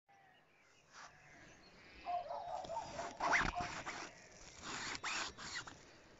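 A zipper being pulled in several short, separate strokes.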